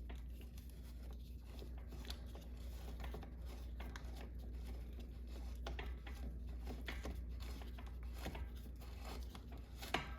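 Faint scattered clicks and rustling from hands handling a bicycle, over a steady low hum, with one sharper click near the end.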